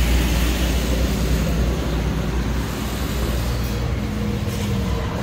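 Two-stroke backpack leaf blower engine running steadily, with the rush of air through the fan and hose.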